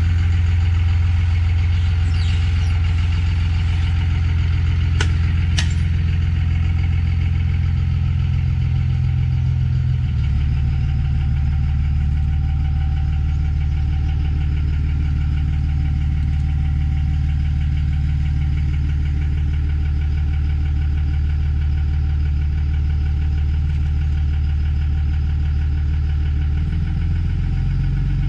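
Dodge Ram 2500 pickup's engine idling steadily in neutral, its note shifting about ten seconds in and again near the end. Two short clicks come about five seconds in.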